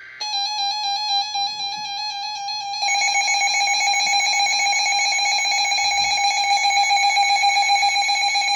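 Emergency Alert System two-tone attention signal over the radio: a loud, steady warbling tone that steps up in loudness about three seconds in. It is the alert tone announcing an incoming emergency warning, sounded right after the end of the SAME header's data burst.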